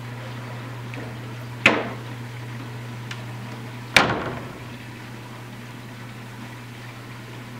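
Steady low hum and water hiss of reef aquarium pumps and circulation, broken by two sharp knocks about two seconds apart, each ringing briefly.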